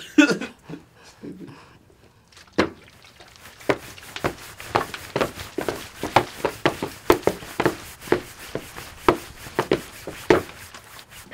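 Foley footsteps recorded in a small, dry room, walking at a steady pace of about two steps a second from about three and a half seconds in, after a single sharp knock.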